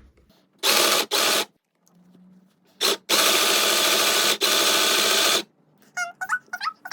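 Mini electric hand-held sewing machine stitching in stop-start bursts under its foot pedal: two short bursts about a second in, then a longer run of about two seconds.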